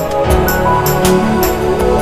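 Background music: held, soft notes over a steady light beat.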